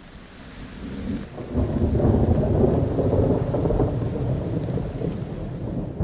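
Thunderstorm: a long rolling rumble of thunder over rain, swelling over the first two seconds, then slowly easing and dying away near the end.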